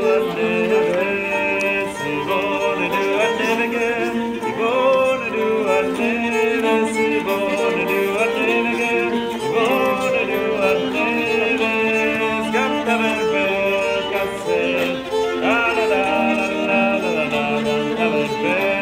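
Nyckelharpa, a Swedish keyed fiddle, bowed to play a folk tune: a moving melody over steadily held lower notes, with the ringing of its sympathetic strings.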